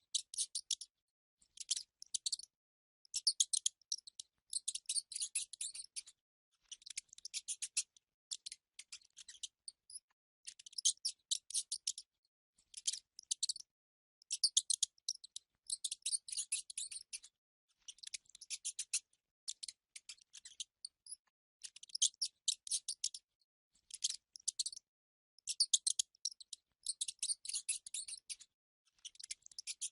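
Mice squeaking in rapid, high-pitched chittering bouts, each lasting about half a second to two seconds, with short pauses between.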